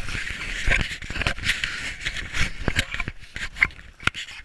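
Skis scraping and hissing over snow, broken by several sharp knocks.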